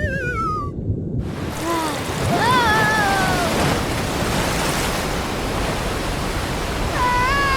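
Cartoon sound effects: a wavering, falling whistle-like tone in the first second gives way to a steady rush of pouring rain. Two short pitched cries that rise and then fall cut through the rain, one about two and a half seconds in and one near the end.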